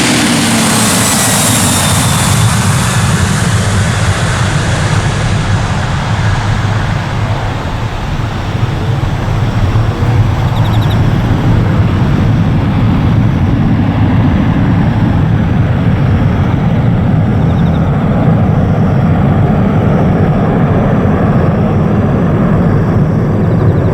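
Jet airliner's engines running at high power, a loud steady roar with a high hiss that fades over the first few seconds.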